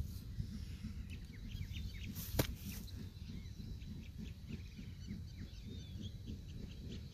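Small birds chirping, many short calls one after another, over a steady low rumble, with a single sharp click about two and a half seconds in.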